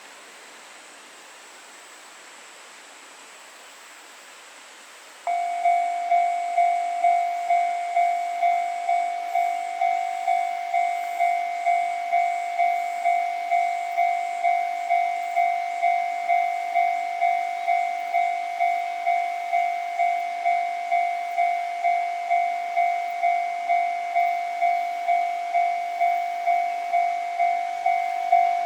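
Japanese railway level-crossing warning bell starts about five seconds in and keeps dinging evenly, about twice a second, signalling that a train is approaching. Before it starts there is only a faint steady outdoor hiss.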